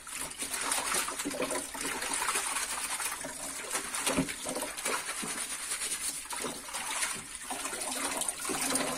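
An open tap running a thin stream into a sink, with the wet rubbing and sloshing of a mesh bag of lambari being scrubbed under the water to strip off their scales.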